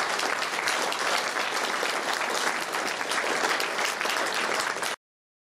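Audience applauding: a steady patter of many hands clapping, which cuts off abruptly about five seconds in.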